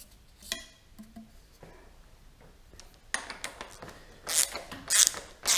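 Motorcycle fork parts being fitted: a few light clicks as a spacer tube is set down onto the washer on the fork springs. Then, about three seconds in, a run of metallic rattling and scraping clicks as the fork cap is pressed down against the springs and turned onto its threads, loudest in sharp bursts about every half second near the end.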